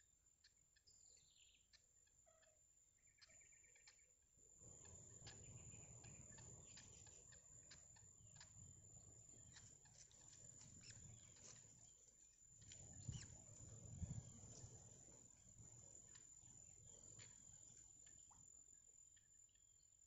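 Faint outdoor ambience: a falling whistled bird call and a short repeated chirping call in the first few seconds, over a steady high-pitched tone. From about a quarter of the way in, a low rumble like wind on the microphone takes over, swelling about two-thirds through, with scattered light ticks.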